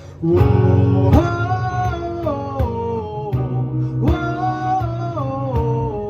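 A small acoustic-pop band of acoustic and electric guitars, bass and cajón plays an instrumental passage. After a hushed moment it comes in loudly, with a melody that steps down in pitch and repeats over a steady bass and a few sharp cajón hits.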